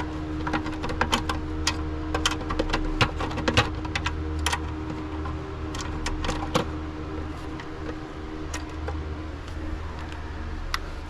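Irregular sharp metallic clicks and taps of hand tools and bolts during work on an engine's intake manifold. They come thick and fast for the first several seconds, then grow sparser, over a steady low hum.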